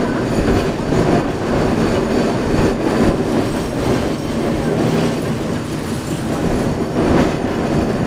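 A 1923–24 Perley A. Thomas 900-series streetcar running steadily along its rails, heard from inside the car, with the continuous noise of its wheels and running gear.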